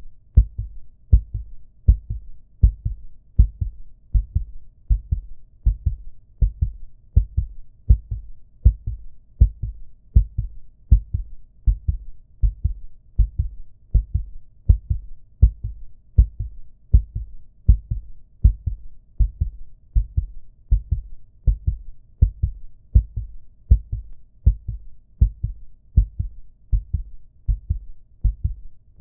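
Recorded human heartbeat: a steady, even rhythm of low lub-dub double thumps at a calm resting pace.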